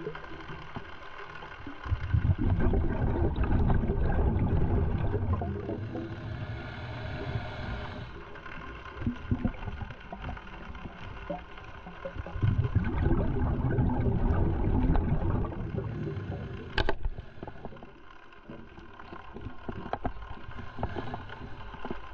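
Scuba diver's exhaled breath bubbling out of the regulator underwater: two long rushes of bubbles, one starting about two seconds in and another about twelve seconds in, with faint crackling between and a single sharp click late on.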